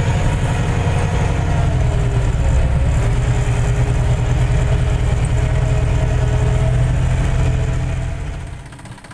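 New Holland farm tractor's diesel engine running steadily under load as it pulls a plough through the soil. The sound fades away near the end.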